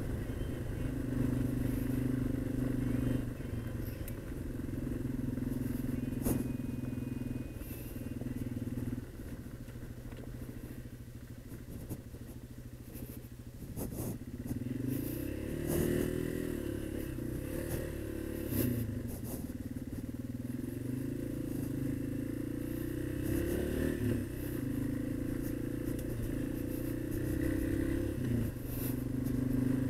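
Yamaha XT225's air-cooled single-cylinder four-stroke engine running while the bike is ridden along a gravel road, the engine note stepping between gears. It drops away for a few seconds near the middle, then climbs again as the bike picks up speed.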